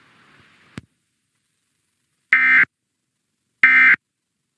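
Emergency Alert System end-of-message (EOM) data bursts: two short, buzzy digital SAME tones about 1.3 s apart, the signal that closes an EAS alert. A faint click comes a second before them.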